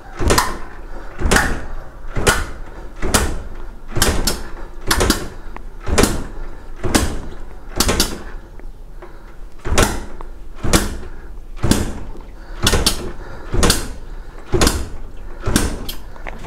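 Motorcycle engine being kicked over by its kick-starter again and again without starting, a sharp double stroke about once a second, to pump out the carbon cleaner put into the cylinder.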